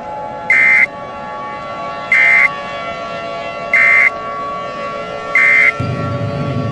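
Emergency alert tone: a steady electronic drone with four short, loud, high beeps about a second and a half apart. A low rumbling noise comes in near the end.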